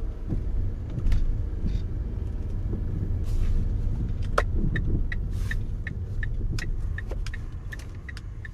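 Low, steady rumble of a car's engine and tyres heard from inside the cabin while driving slowly. About four seconds in, a turn-signal indicator starts clicking at about three clicks a second. Everything fades out near the end.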